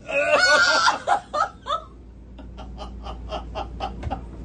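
A person laughing helplessly: a loud, wavering cry-like laugh, then a run of quick, faint giggles, about five a second.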